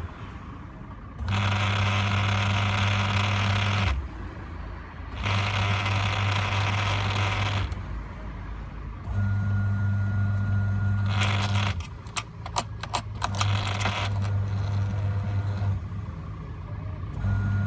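National twin-tub washing machine running in on-off bursts of a few seconds, its motor humming with a metallic rattle ("garagara"), and a flurry of sharp clicks a little past the middle. The rattle comes from a loose screw inside the machine.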